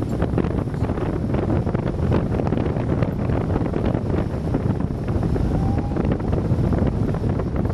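Strong wind of 25–30 mph blowing across the camera microphone: a loud, low rushing noise with frequent short buffets.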